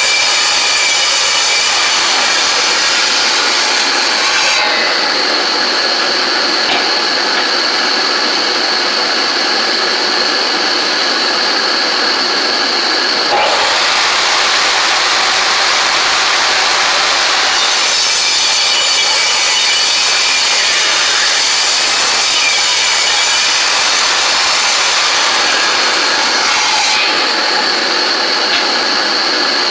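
Ridgid table saw running and ripping eastern red cedar into strips, loud throughout, with a high blade whine that comes and goes as the sound shifts every several seconds while cuts start and finish.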